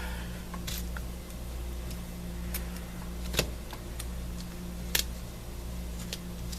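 A handful of light, sharp clicks and taps from craft materials being handled and positioned on a tabletop, about five of them spread out, over a steady low hum.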